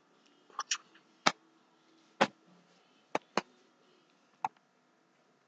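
A series of sharp clicks or taps, about seven at uneven intervals over four seconds, the loudest a little over one second and two seconds in.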